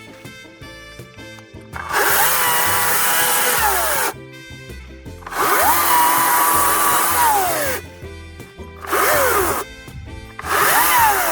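Greenworks 40V cordless electric chainsaw triggered four times: each time the motor whines up to speed, runs with the chain for one to two and a half seconds, then winds down as the trigger is released.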